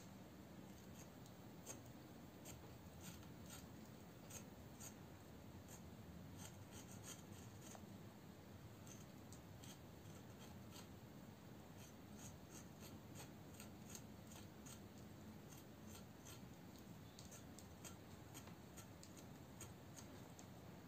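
Faint, irregular small clicks and scrapes of pruning shears' blade scraping the bark off the base of a conifer cutting.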